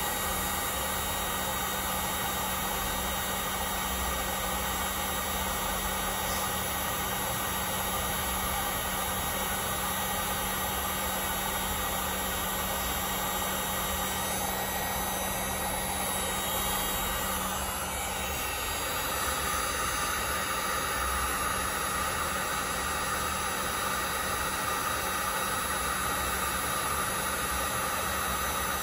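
Electric heat gun running steadily, its fan and airflow making a constant hiss with a high whine. About two-thirds of the way through, the tone shifts slightly and a higher whine comes up.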